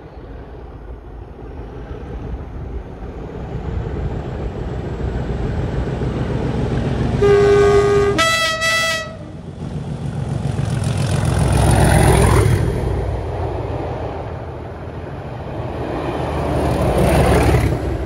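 Colas Rail Class 37 diesel locomotive 37612 approaching at speed, its English Electric V12 engine growl building, then its multi-tone horn sounding two loud chords one straight after the other, about seven seconds in. The engine and train noise peak as it passes close beneath, about twelve seconds in, and swell again near the end.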